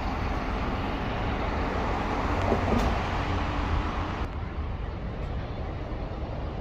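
Road traffic noise: a steady rumble of vehicles, swelling a little about two seconds in and easing after about four seconds.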